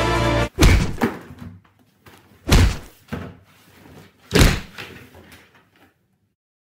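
Three heavy thuds of blows landing, about two seconds apart, each followed by a smaller knock.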